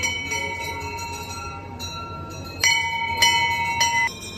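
Hindu temple bell rung by a worshipper: the ring of earlier strokes fades, then three strokes about half a second apart come near the end, and the clear ringing tone stops suddenly just after.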